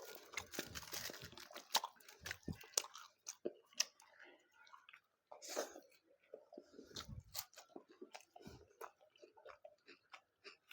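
Close-miked chewing and biting: wet mouth sounds with irregular crunchy clicks as a mouthful of tandoori chicken and paratha is eaten.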